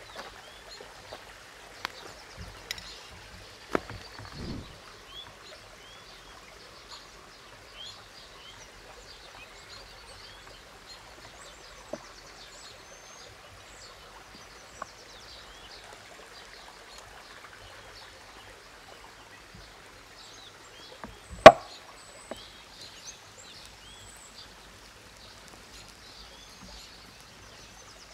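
Chef's knife cutting a block of cheddar cheese on a wooden board: scattered light knocks of the blade, then one much louder knock about three quarters of the way through. Underneath, the steady rush of a nearby stream with birds chirping.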